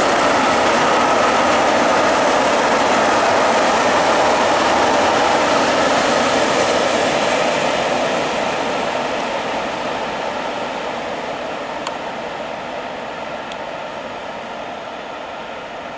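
Open coal wagons of a freight train rolling past on the rails, a steady rumble that fades out gradually from about halfway as the train draws away.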